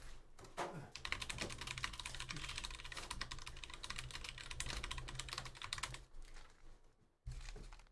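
Rapid, irregular clicking of typing on a computer keyboard, starting about a second in and stopping about six seconds in.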